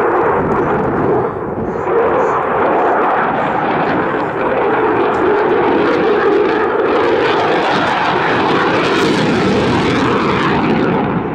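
Jet noise from a Eurofighter Typhoon's twin EJ200 turbofan engines as the fighter manoeuvres overhead: a loud, steady rushing rumble that dips briefly about a second in, swells harsher around nine seconds, then falls away near the end.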